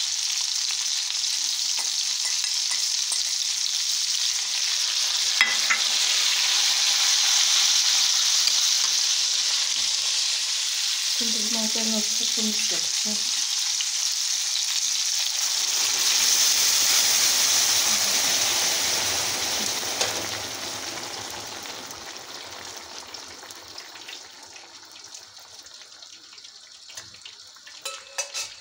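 Meatballs, potatoes and peppers sizzling in hot oil in a steel frying pan. Tomato juice is poured in partway through, and the sizzling dies down over the last several seconds as the liquid cools the pan.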